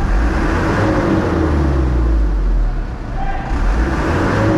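Diesel engine of a Mitsubishi Canter truck running with a steady low rumble.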